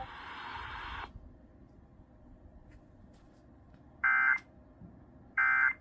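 Emergency Alert System end-of-message signal: two short, identical bursts of two-tone digital data about a second and a half apart, after broadcast hiss cuts off about a second in.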